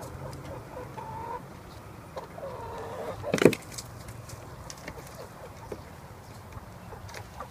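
Backyard hens clucking in short calls, with one loud thump about three and a half seconds in.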